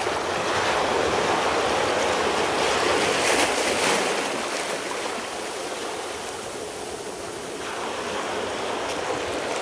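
Recording of ocean surf played over loudspeakers, with the spatial channels of the Ambisonic recording removed so that only the non-directional part of the sound is left. A continuous wash of waves that is loudest in the first few seconds and eases off a little after.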